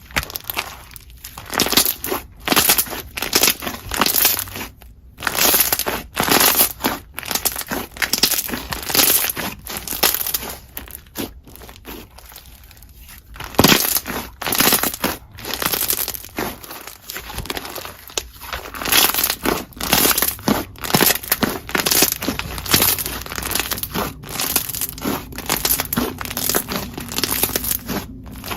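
Hands squeezing and pressing slime mixed with plastic Perler beads, giving irregular runs of crackly, crunchy clicking and squishing, with a couple of brief quieter pauses.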